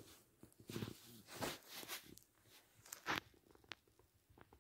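Faint, scattered rustles and soft clicks of a pet rabbit rummaging in torn paper tissues.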